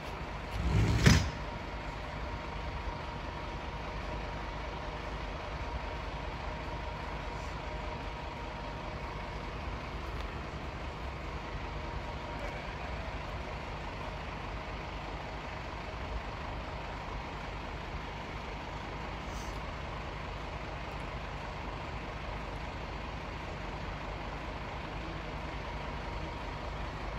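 Fire engine's diesel engine idling, a steady low rumble with a faint steady high tone running through it. There is one brief loud bump about a second in.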